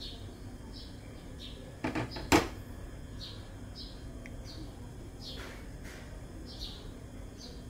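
Short high bird chirps repeating irregularly, roughly one every half second to a second, over a low steady hum, with a sharp double knock about two seconds in.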